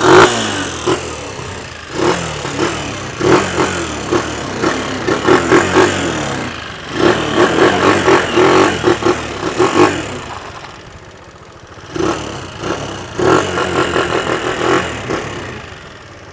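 MH Drift motorcycle engine, just bored up from 125cc to a 200cc cylinder, revved in four bursts of quick throttle blips and falling back to idle between them and near the end.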